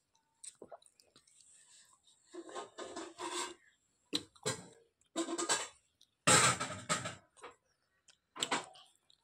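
A string of short rustling and clattering bursts right at the microphone: hands and a plastic bowl of fried fish being handled, the loudest a little past the middle.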